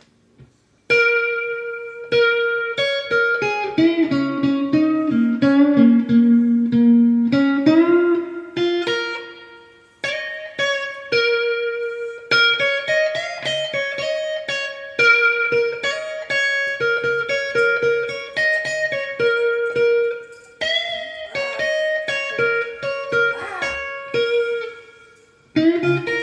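Squier '70s Vintage Modified Stratocaster fitted with Fender Custom Shop Texas Special pickups, played through a Fender Mustang III v2 amp's '57 Deluxe model with spring reverb. Single picked notes and double-stops, a repeated high note ringing over a lower line that steps down and back up. The playing starts about a second in and breaks off briefly twice, near ten and near twenty-five seconds.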